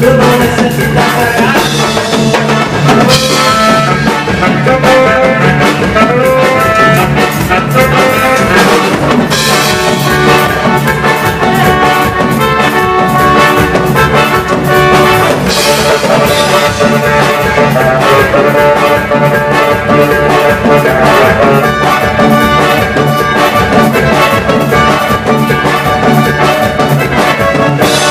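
Instrumental break of a Mexican group's song: brass (trumpets and trombones) playing over a steady drum beat, with no singing.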